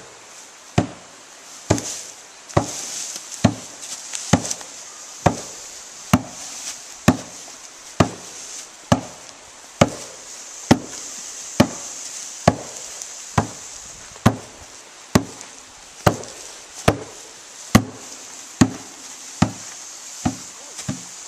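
Steady rhythmic percussion beat, about one stroke a second, quickening near the end, accompanying a dance.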